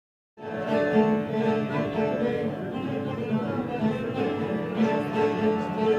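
Bağlama (saz) music, the instrumental opening of a semah tune, starting abruptly just after the beginning and playing on steadily.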